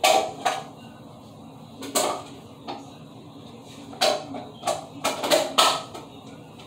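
Irregular knocks and clatters of hard plastic being handled: a small plastic hamster carrier and its snap-on lid being moved and shut. The busiest run of knocks comes between about four and six seconds in.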